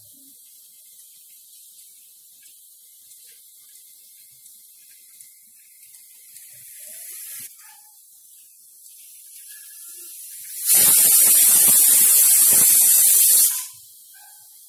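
Prestige pressure cooker whistling: a faint hiss of steam builds, then about three seconds in from the end a loud, even hiss of steam venting through the weight valve starts and cuts off sharply. It is one whistle, the sign that the cooker has reached full pressure, counted to time the cooking.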